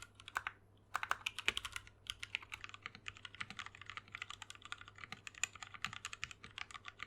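Fast typing on a mechanical keyboard: a dense, rapid run of keystroke clacks with a brief pause about half a second in.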